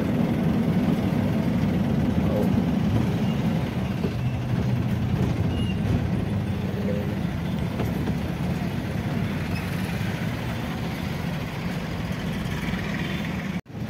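Motor vehicle driving on the road: steady engine and road rumble, cutting out abruptly for a moment near the end.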